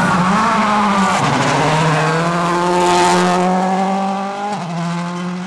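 A 2.0-litre turbocharged four-cylinder World Rally Car engine running hard as the rally car passes on a gravel stage. The engine pitch rises just after the start, then steps down about a second in and again near the end, holding high in between.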